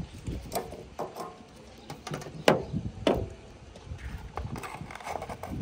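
Tractor front loader at work: irregular knocks and clanks, the loudest two about halfway through, over a low engine rumble.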